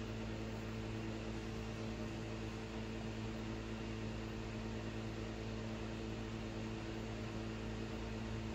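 Steady electrical hum made of several fixed low tones over a faint even hiss, unchanging throughout.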